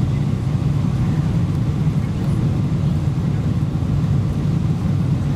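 Steady low rumble of airflow and engines heard inside the cabin of a Boeing 777-200ER on short final with flaps extended, moments before touchdown.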